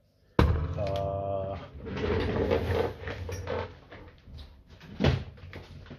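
Lenovo T550 laptop battery being handled and swapped: a sharp plastic click about half a second in, clattering and scraping through the middle, and another sharp click near the end.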